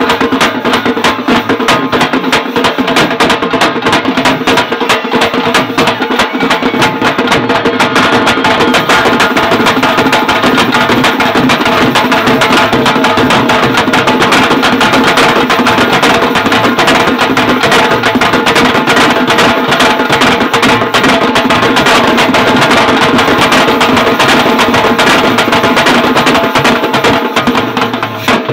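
Karakattam folk drum ensemble playing a fast, dense rhythm: a barrel drum and large stick-beaten drums, with a steady held melodic tone sounding under the drumming. The drumming stops abruptly at the very end.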